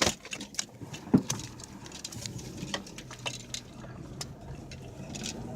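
Popping and clicking from the underside of a 2005 Chevy Cavalier's front end while the car is moving: one sharp loud pop about a second in, then lighter clicks over a steady engine and road hum. The pops began after the front end was loosened and retightened for a rack-and-pinion replacement, and the owner thinks the steering is now out of line.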